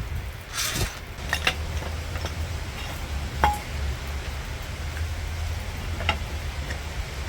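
A few scattered metallic clinks and clicks of tools and puller parts being handled, over a steady low hum.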